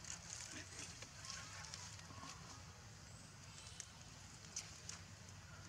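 Faint outdoor ambience: scattered light crackles and rustles of dry leaves over a steady high hiss.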